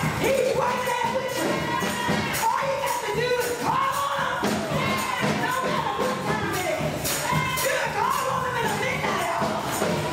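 Gospel choir singing with instrumental accompaniment, with percussion keeping a steady beat.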